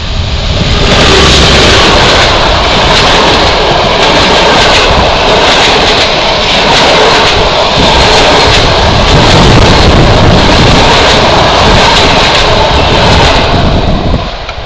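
Passenger coaches of a train rushing past close by: a loud, steady rolling noise of steel wheels on rail, with clicks through it. It drops away abruptly near the end as the last coach goes by.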